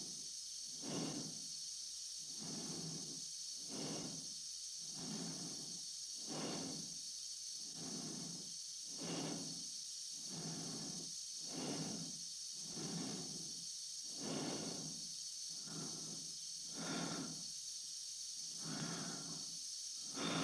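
Slow, even breathing of an astronaut inside a spacesuit helmet, a breath in or out about every second and a half, over a constant hiss.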